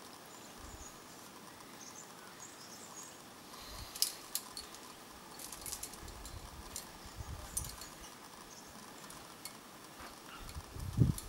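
Quiet outdoor ambience with faint, scattered high chirps. A few sharp clicks come about four seconds in and again a little later, and low thumps near the end are the loudest thing.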